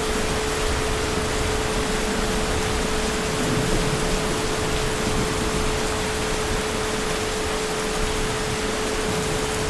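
Heavy rain falling steadily, an even rushing hiss, with a constant thin tone underneath.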